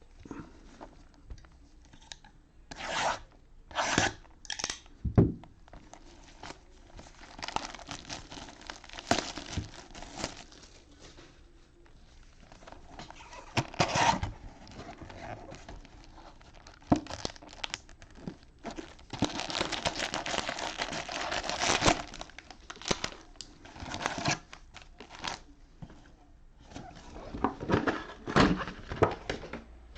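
Plastic wrap on a sealed box of trading card cello packs being torn and crinkled off by hand. A few short sharp rips come first, then longer stretches of crinkling, with a longer dense crinkle near the middle and more short rips near the end.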